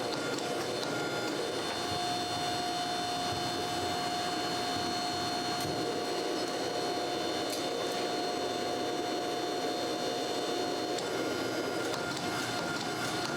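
A machine running steadily with a constant whine over a rushing noise; the whine grows stronger about two seconds in and weakens near the end.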